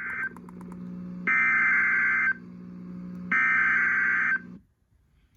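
Emergency Alert System SAME header for a Special Marine Warning: the end of one burst of digital data tones, then two more one-second bursts about a second apart, over a low steady hum. Everything stops about four and a half seconds in.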